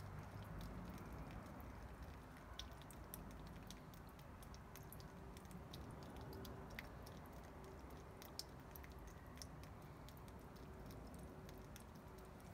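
Water draining from the bottoms of two freshly watered terracotta plant pots, trickling and dripping faintly onto a wooden seat, heard as scattered small irregular ticks over a light hiss.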